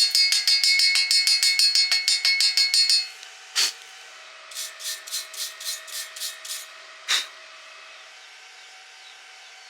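Metal hammer striking steel in a rapid, even run of ringing blows, about six a second, stopping about three seconds in. Then comes one more blow, a softer run of about eight taps, and a final blow.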